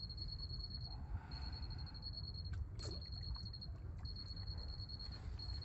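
An insect trilling at one high pitch in repeated bursts of about a second each, separated by short gaps, over a low rumble and a few faint clicks.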